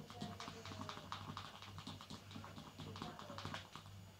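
Plastic fork stirring a glue, water and green paint mixture in a plastic bowl: faint, quick, irregular clicks and scrapes of the fork against the bowl.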